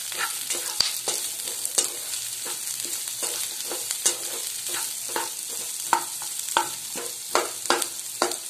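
Sliced onions, garlic, ginger and green chillies sizzling in hot oil in a pan, being sautéed until the onions turn pink. A spatula stirs and scrapes against the pan in frequent, irregular strokes over the steady hiss of the frying.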